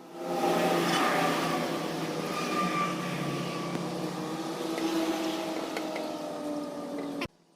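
Restored old blower running: its motor hum and fan whine start just after the beginning, build up over about a second, run steadily, then cut off suddenly near the end as it is switched off.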